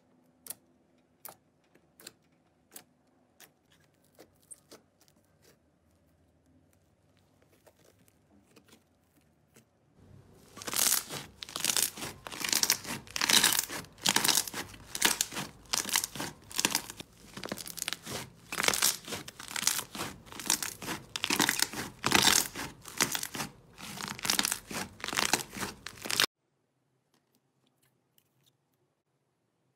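Slime worked by hand: a few sparse, faint pops and clicks at first, then, from about ten seconds in, a long run of loud, dense crackling and popping as the slime is squeezed and kneaded, which cuts off suddenly near the end.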